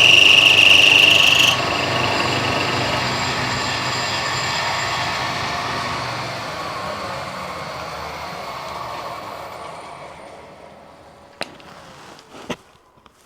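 Milling machine cutting a slot, with a loud high whine that stops about a second and a half in. The spindle then runs down, fading out over several seconds, followed by two sharp clicks near the end.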